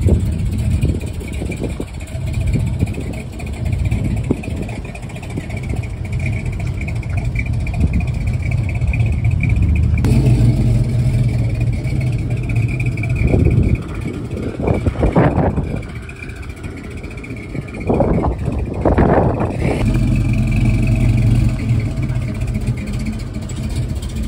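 1970 Dodge Charger's engine running with a deep rumble, blipped several times in quick revs in the second half.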